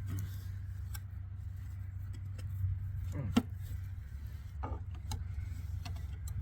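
Metal tools clicking and scraping against a circuit breaker's screws and steel parts, a few sharp clicks with the loudest a little past the middle, over a steady low hum.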